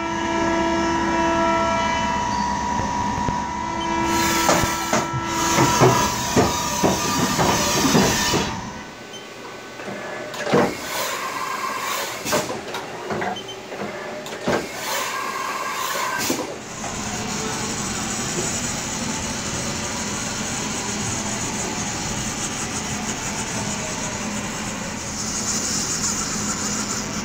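2012 Haas VF-4 CNC vertical mill running through a machining cycle. It opens with a steady whine of several tones, then a louder rough stretch with rattling. In the middle come sharp clicks and knocks, and the second half is an even hiss.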